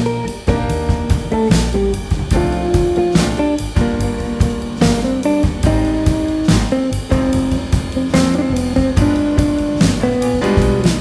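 Instrumental band music: guitar over a drum kit keeping a steady beat, with sustained pitched notes and no singing.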